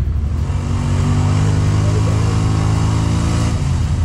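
Side-by-side UTV engine running, with a steady engine tone that holds from about half a second in until shortly before the end.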